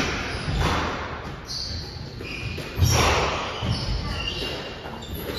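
Squash rally: a ball struck hard right at the start and again about three seconds in, with players' shoes squeaking on the court floor in between.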